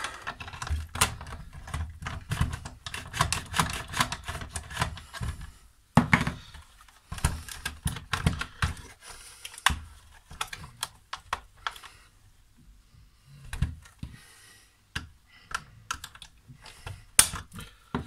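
Clip tabs of a Nespresso Inissia coffee machine's black plastic housing clicking and clattering as the casing is pried apart by hand. The clicks come in dense runs with short pauses, with a sharper snap about six seconds in and another near the end.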